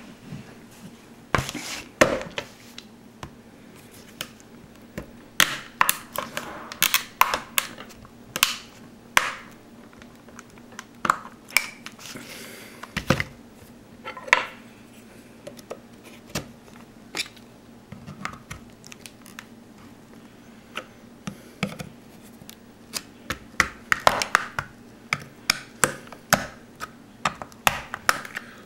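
Irregular clicks, knocks and short scrapes of a screwdriver and a thin flat tool prying at the plastic case of a Motorola Ultra Classic 2 brick phone, working to split it open.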